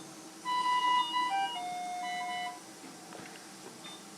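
A simple electronic tune of plain beeping notes, stepping between pitches for about two seconds from half a second in, then stopping.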